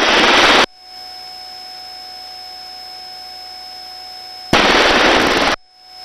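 Loud rush of helicopter rotor and engine noise over the crew intercom that cuts off abruptly under a second in and cuts back in for about a second near the end. In between there is only a faint steady electronic whine.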